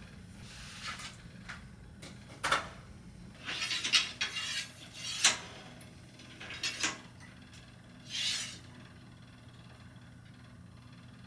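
A metal light stand being handled and adjusted: several short scrapes, rubs and knocks spread over a few seconds, with the busiest stretch around the middle.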